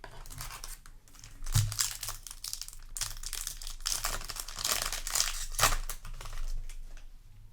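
Foil booster-pack wrapper of a Yu-Gi-Oh! card pack crinkling and being torn open by hand, an irregular crackle with louder rips about a second and a half in and again near the end.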